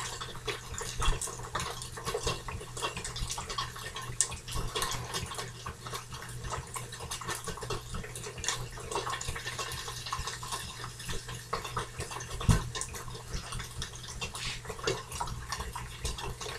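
Steady, dense crackle and hiss of food frying in a hot pan, over a low steady hum, with soft scrapes of a knife spreading guacamole on a tortilla.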